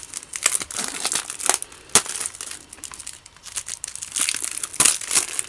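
Plastic shrink-wrap being peeled off a Blu-ray case, crinkling in irregular crackles, with sharper snaps about two seconds in and near the end.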